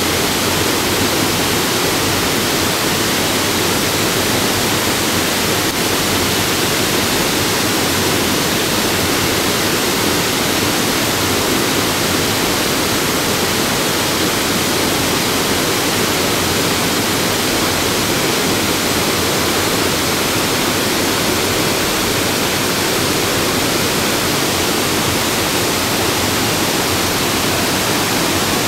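Havasu Falls and the small cascades in the pools below it: a loud, steady rush of falling water that does not change.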